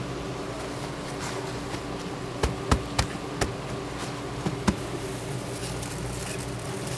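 A steady machine hum, with a handful of sharp knocks and taps on a plastic cutting board from about two and a half to five seconds in, as gloved hands handle the seafood and wipe the board.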